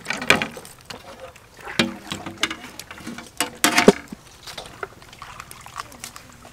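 Small thin-shelled fruits being peeled by hand off their twigs in a plastic basket: a run of sharp irregular clicks and cracks as the brittle shells split, with rustling of the stems.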